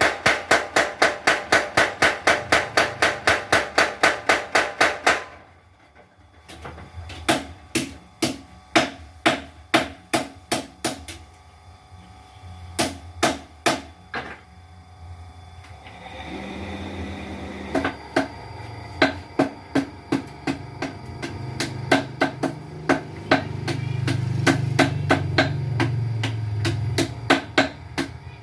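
Mechanical blacksmith's power hammer striking in a fast, even run of about five blows a second, which stops about five seconds in. It then strikes in slower, uneven single blows and short runs, with a low steady hum from its motor coming up about halfway through.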